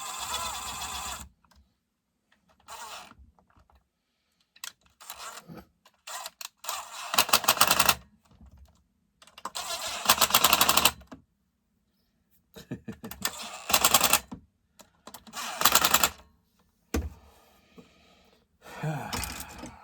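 Hand ratchet clicking in several quick runs while tightening the bolts of a chainsaw muffler, with short pauses between the runs and a low thunk of a tool near the end.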